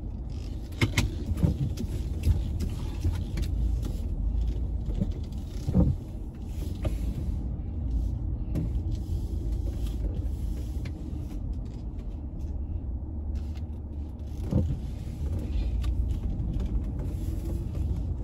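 Car cabin noise while driving slowly: a steady low engine and road rumble, with a few light knocks.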